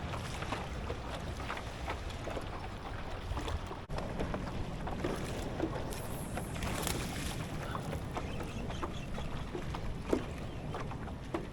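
Water lapping and splashing against a kayak hull, with a steady low rumble of wind on the microphone and scattered small ticks; a brief hissing swell of water about six seconds in.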